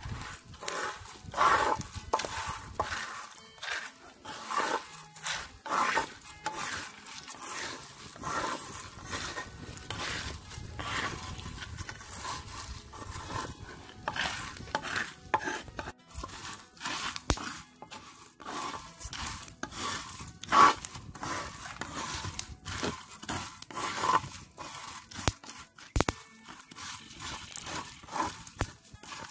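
A wooden spatula scraping and stirring pumpkin seeds across a clay comal in repeated strokes, the seeds rustling as they are kept moving while they dry-toast.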